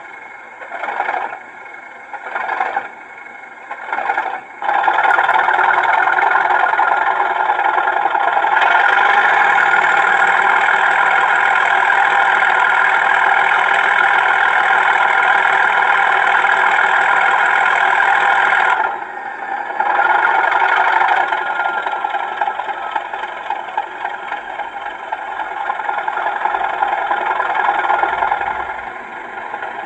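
Sound decoder in a Bachmann OO-gauge class 37 model locomotive playing a recorded English Electric diesel cold start through its small speaker. A few short bursts come first, then the engine catches about four seconds in and runs loud with a high whistle-like tone. It drops back around twenty seconds in to a steadier idle.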